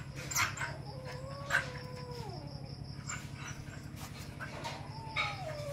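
Two long, wavering animal cries, each lasting over a second and sliding down in pitch at the end, the second starting near the end, with scattered small clicks between them.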